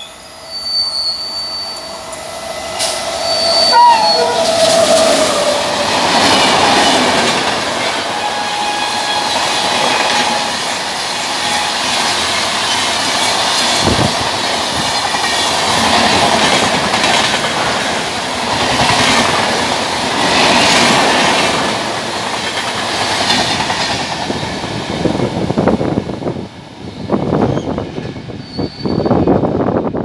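WAP-7 electric locomotive sounding its shrill horn in the first few seconds as it approaches. Then an express of LHB coaches runs past at about 130 km/h: a loud, steady rush of wheels and wind with clickety-clack over the rail joints. Near the end this breaks into separate wheel clacks as the last coaches go by.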